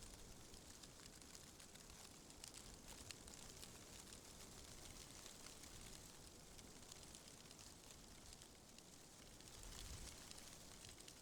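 Faint rustling of tree leaves in a gentle wind, a light crackle of leaves with a soft swell about ten seconds in.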